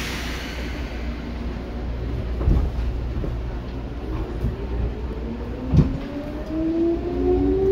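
Seibu 2000 series electric train pulling away: a steady low rumble with a short hiss at the start and two knocks, then a whine from the traction motors that climbs steadily in pitch from about five seconds in as the train accelerates.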